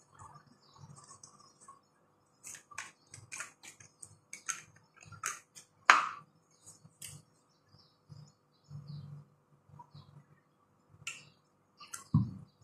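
Mouth sounds of someone eating by hand: a string of short wet lip smacks and chewing clicks. There is a sharper click about six seconds in and a dull knock near the end.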